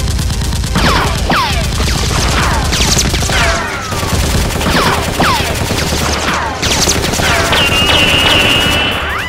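Automatic gunfire sound effects dubbed over a Nerf blaster fight: rapid shots with repeated falling ricochet whines, and near the end one high whine held for about a second and a half.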